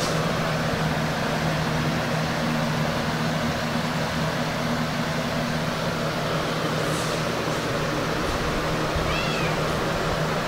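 Steady low hum with hiss, with a few faint short hissing sounds and a brief high-pitched call about nine seconds in.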